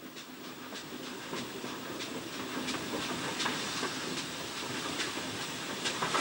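Steam locomotive: a steady hiss of steam with regular clicking about three times a second, slowly growing louder.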